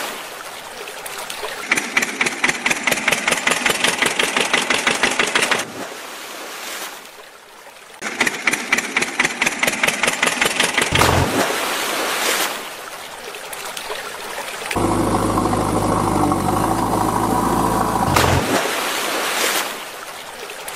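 Tractor engine chugging in fast, even beats, twice for a few seconds each, with a later stretch of steady engine hum. Water splashes and churns as toy tractors with trolleys plunge into a pond: once at the start, again about eleven seconds in, and once more near the end.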